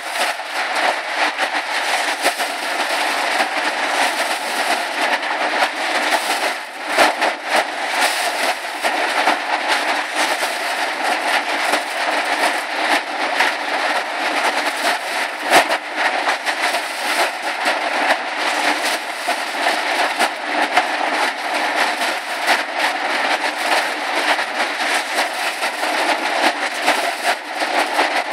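Ear corn clattering down a sheet-metal chute onto a running chain-and-flight conveyor, a dense steady rattle of cobs and chain, with a couple of sharper knocks.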